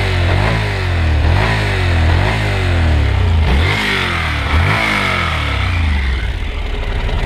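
Honda NC700X's 670 cc parallel-twin engine through its stock exhaust, revved in about seven quick throttle blips. Each blip jumps up in pitch and falls back. About six seconds in it settles to a steady idle.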